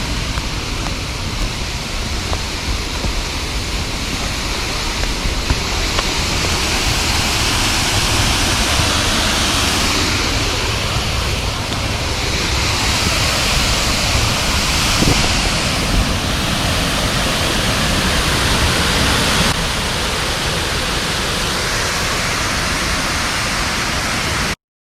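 Waterfall close by: water pouring down in a loud, steady rushing hiss with a low rumble beneath. It cuts off abruptly just before the end.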